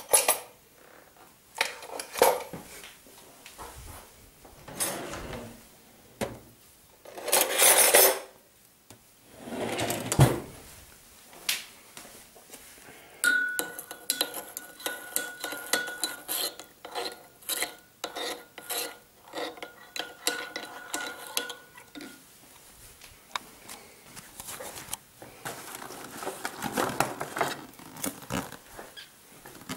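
A metal spoon stirring in a white ceramic bowl, clinking rapidly against its sides with a steady ring, for several seconds in the middle. Before that come scattered knocks and clinks of dishes and jars being handled, and near the end softer handling noises.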